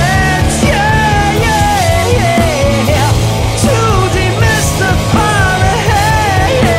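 Rock band playing loudly: a male lead vocal sings a gliding melody over guitar, bass and drums.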